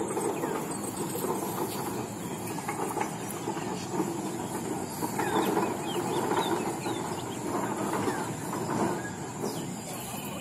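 Outdoor ambience: a steady rumbling background noise with many short bird chirps over it and a thin, high, steady tone.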